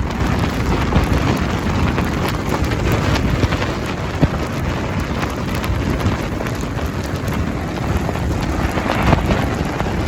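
Blizzard wind rushing and buffeting against the microphone, a steady noisy roar with a heavy low rumble, flecked with fine ticking from blowing snow.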